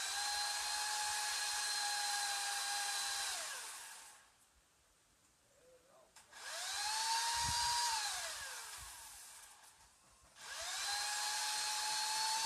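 Electric saw motor run three times in short pulls of the trigger, each spinning up to a steady high whine and winding down with falling pitch when released, with near quiet between the runs.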